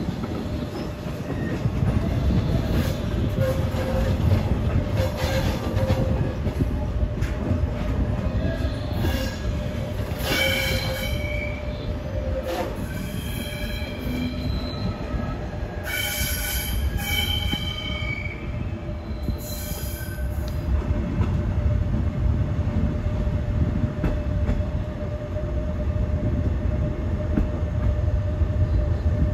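A passenger train rolls slowly with a low rumble and a steady hum, and its wheels squeal high several times as it runs over curving track and points, loudest about halfway through.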